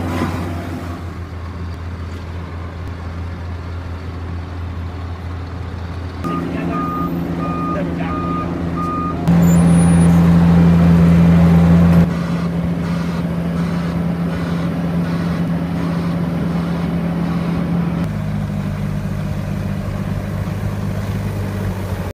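Diesel engines of road-resurfacing machinery (road roller, tracked asphalt paver and tracked loader) running steadily in a series of cut-together clips, loudest close up for a few seconds near the middle. A reversing alarm beeps about twice a second for a few seconds.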